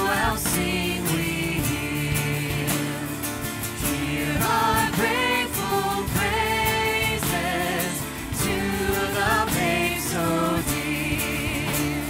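Live worship band performing a Christmas song: several voices singing together with vibrato on held notes, over acoustic and electric guitars and a steady beat.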